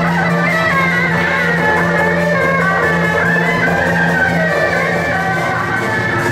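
Music: a wavering melody held over steady sustained notes, loud and even throughout.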